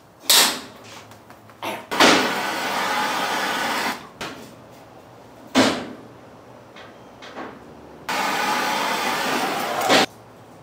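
A handheld gas torch fired twice in bursts of about two seconds, each starting and cutting off abruptly, heating steel rod for bending into hinges. Two sharp metal clanks of the steel rod and tube against the steel table come between the bursts.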